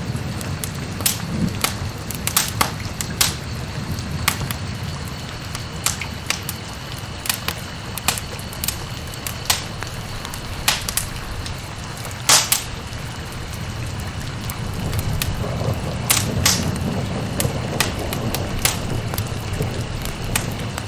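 Steady low rumble with sharp crackles and pops scattered irregularly, about one a second, the loudest a little past halfway.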